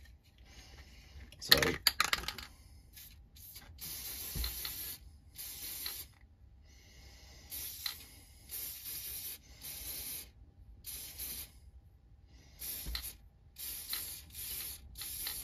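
Aerosol spray paint can hissing in about a dozen short bursts, each under a second long, as paint is sprayed in quick passes.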